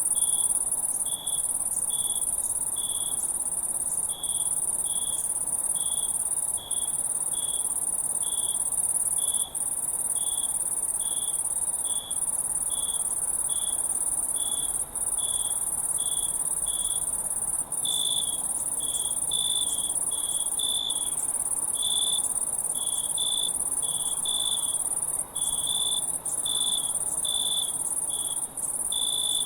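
Crickets chirping: a steady, very high-pitched trill underneath, with evenly spaced chirps about three every two seconds. From about eighteen seconds in, a second chirper joins and the chirps come faster and overlap.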